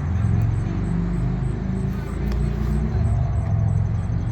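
Engines of Can-Am Spyder three-wheelers running at a rally: a steady low engine noise whose pitch shifts a little as the machines idle and move.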